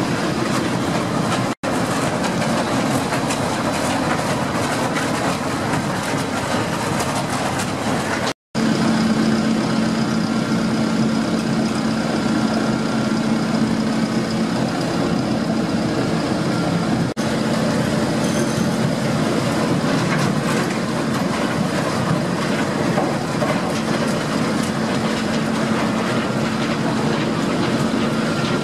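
Steady noise of heavy industrial machinery running, joined after about eight seconds by a constant hum. The sound cuts out briefly twice.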